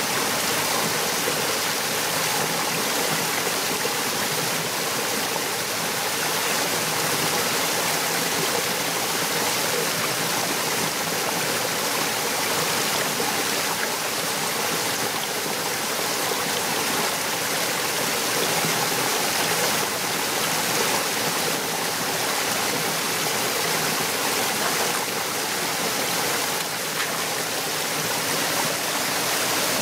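Small forest stream tumbling over rocks in a little cascade, a steady, even rush of running water.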